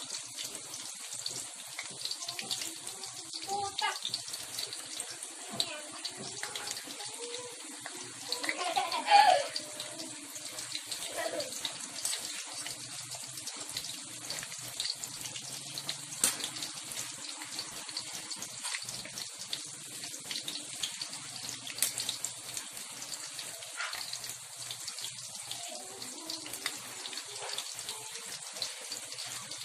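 Breaded fish fillets deep-frying in oil in an aluminium wok: a steady sizzling hiss with fine crackles, the fillets still cooking toward golden brown. A brief louder sound comes about nine seconds in.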